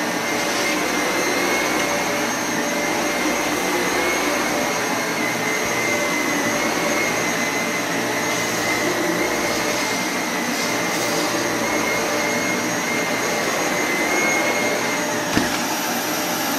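Dyson Cinetic Big Ball Animal + Allergy upright vacuum cleaner running steadily as it is pushed back and forth over carpet, its motor giving a steady high whine over the rush of suction. One short click near the end.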